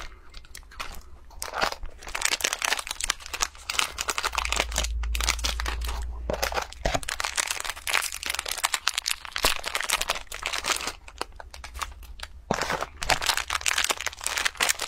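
Plastic snack packets crinkling and being torn open, one after another, as small biscuits are shaken out of them. A low rumble of handling runs for a few seconds near the middle.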